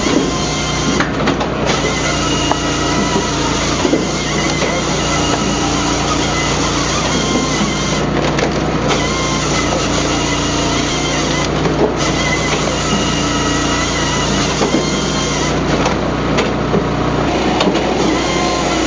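Firewood processor's 13 HP Honda petrol engine running steadily, the machine working under hydraulic power.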